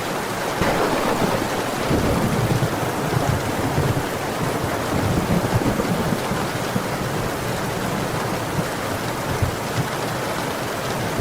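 Steady heavy rain hissing, with a low uneven rumble of thunder from about a second in.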